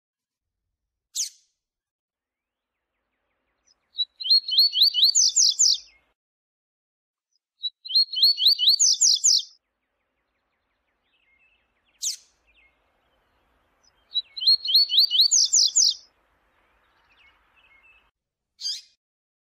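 Double-collared seedeater (coleiro) singing the 'viu-tiu' song: three phrases of about two seconds each, each a fast run of high notes climbing in pitch. Single short sharp notes fall between the phrases.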